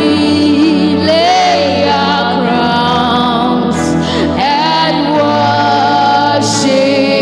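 Two women singing a gospel worship song together into handheld microphones, their voices gliding through the melody over sustained backing chords that change about twice.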